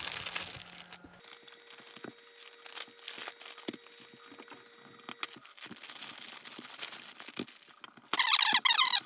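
Plastic vacuum-sealer bags crinkling and rustling, with small knocks, as deer backstraps are handled and slid into them. About eight seconds in comes a much louder rasping rustle lasting about a second.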